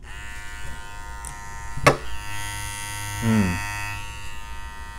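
BaByliss Pro White FX cordless hair clipper running at a steady, even buzz, its Ferrari-designed motor sounding stable. A single sharp click comes about two seconds in.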